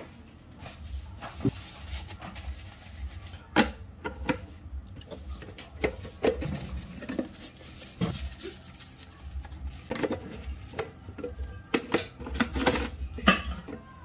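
Glass storage jars and their lids being handled and set down on a counter: irregular clinks, clicks and knocks, busiest near the end.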